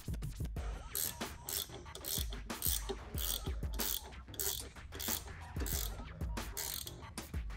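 Hand socket ratchet clicking in quick repeated strokes as bolts are run in.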